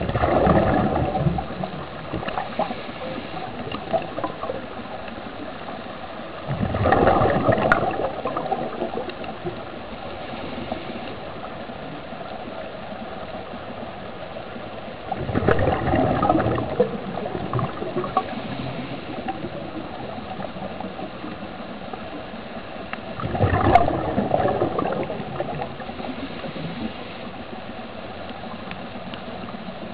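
Underwater bubbling of air escaping from the reef-walking diving helmets: a steady bubbling hiss with a louder rush of bubbles about every eight seconds, four times.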